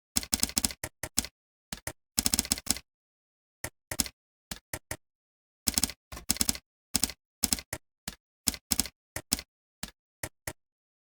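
Typing on a computer keyboard: irregular bursts of rapid keystrokes, separated by short stretches of dead silence.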